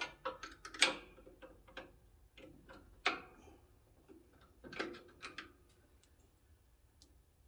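Scattered sharp metal clicks and clinks of a bolt, hardware and hand tools against the alternator and its mounting bracket as the replacement alternator is fitted. The loudest come about one and three seconds in, with another few near five seconds, then they die away.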